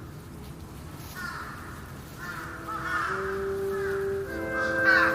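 A bird calling in several short bouts, with held music notes fading in about halfway through and growing louder toward the end.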